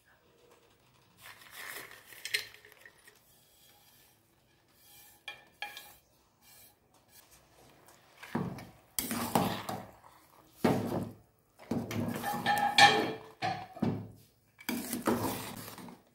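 A stainless-steel ladle stirring vermicelli payasam in a steel pot, scraping and clinking against the pot in a series of bouts over the second half. Before that, there are faint soft sounds as fried cashews and raisins are tipped in from a steel plate.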